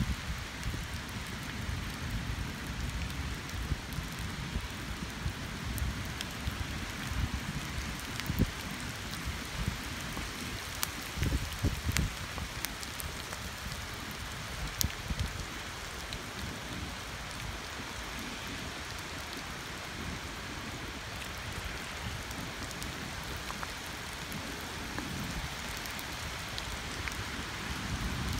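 Steady rain falling on a wet asphalt path covered with fallen oak leaves: an even hiss of drops, with now and then a sharper single drip tick, over an unsteady low rumble.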